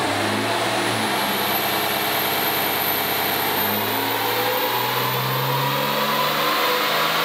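Cummins 6.7-litre turbo-diesel in a 2017 Ram pickup running hard on a chassis dyno during a power run, loud and steady with a high whine that rises about a second in and then holds.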